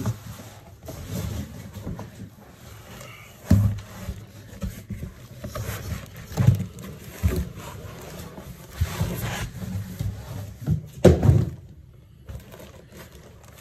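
Unpacking noises: cardboard box flaps and foam packing blocks being handled, scraping and rubbing, with a few louder knocks, the loudest near the end.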